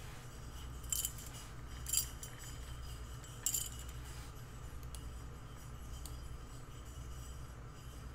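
A few light clicks and clacks of hard plastic as a toy robot figure is handled and set in position: three short sharp ones, about a second in, at two seconds and at three and a half seconds, over a steady low hum.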